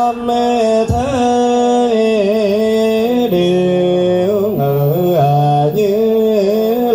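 Buddhist devotional chanting sung in long held notes that slide and step slowly up and down.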